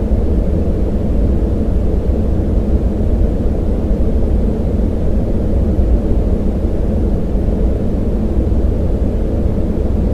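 Steady synthetic yellow noise: a deep brown-type noise with its low-middle band boosted. It is a constant rushing hiss with almost no high end, like the inside of a jet cabin in flight.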